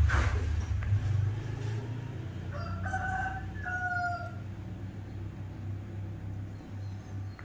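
A rooster crowing once about three seconds in, a drawn-out call in two held notes, over a steady low hum.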